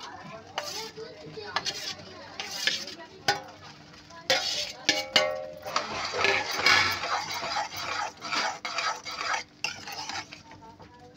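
A steel spoon stirs fried boondi into sugar syrup in an aluminium pan, scraping and clinking against the pan in irregular strokes.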